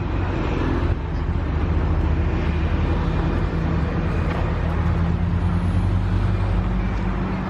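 Street traffic: a motor vehicle's engine running with a steady low hum over general road noise.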